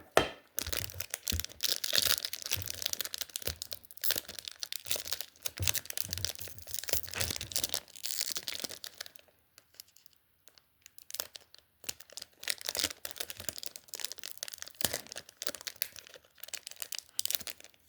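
Foil Pokémon booster pack wrapper crinkling and tearing as it is worked open with difficulty, in a long run of crackles with a brief lull about halfway through.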